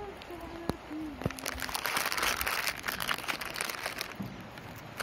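A plastic chip packet crinkling as it is handled, starting about a second in and lasting a few seconds.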